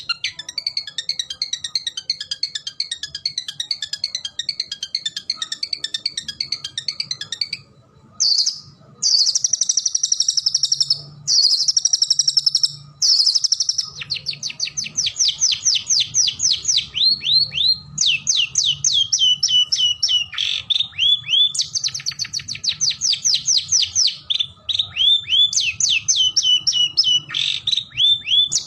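Long-tailed shrike (cendet) singing in full voice: several seconds of rapid chattering, then two long buzzy trills, then quick runs of down-slurred notes repeated phrase after phrase.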